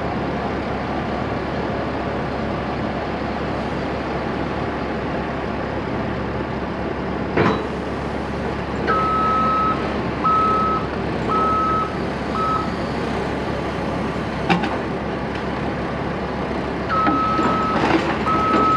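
Deere 75G excavator's diesel engine running steadily while it is unloaded, its travel alarm beeping in a single steady tone from about halfway in, pausing, then starting again near the end. Two sharp metal clanks stand out, one before the beeping begins and one during the pause.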